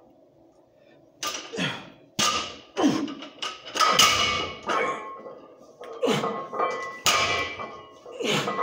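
Lifter setting up and pulling a 405 lb barbell deadlift: sharp, irregular knocks and thuds from the loaded bar and plates, with short grunts that fall in pitch, starting about a second in.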